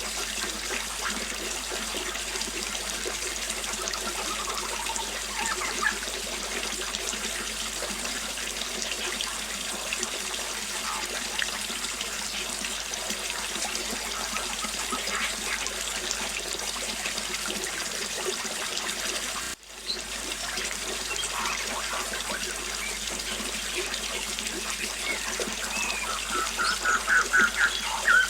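Small waterfall splashing and trickling steadily, with birds chirping now and then and a quick run of repeated chirps near the end. The sound cuts out for a split second about two-thirds of the way through.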